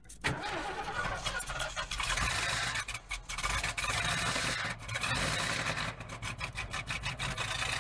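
Ford 460 V8 of a motorhome idling as a low, steady rumble, under loud scraping and rubbing close to the microphone.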